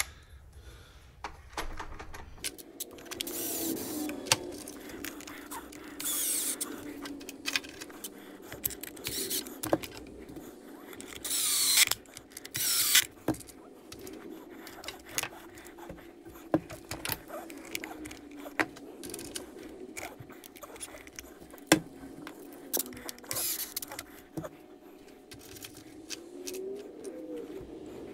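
Screws being driven into a Traxxas X-Maxx RC truck's chassis: a handful of short bursts from a driver a few seconds apart, with scattered small metallic clicks from the tool and parts, over a steady low hum.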